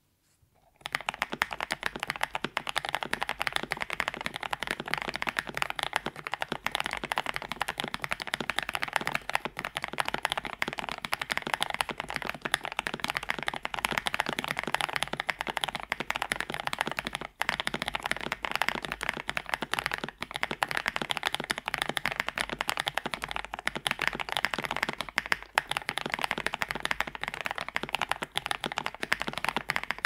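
Continuous typing on a KBD67 Lite R2 mechanical keyboard with lubed Holy Boba tactile switches on a polycarbonate plate, PBT keycaps and foam dampening: a dense stream of keystrokes starting about a second in, with one brief pause a little past halfway.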